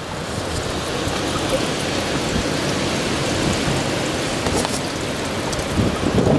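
Storm noise: a steady hiss of rain and wind, with a gust of wind buffeting the microphone near the end.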